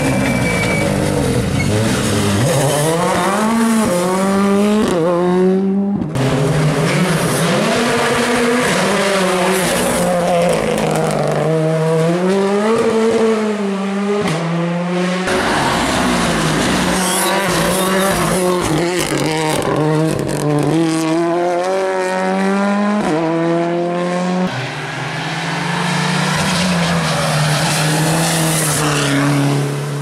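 Rally car engines driven hard on a stage, pitch climbing and then dropping at each gear change, in several short passes cut one after another.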